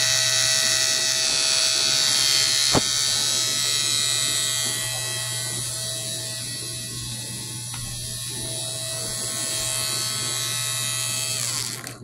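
Homemade Snap Circuits motor siren with a paper rotor running flat out: a loud, steady high-pitched tone. A sharp click comes about three seconds in. Near the end the siren winds down and stops.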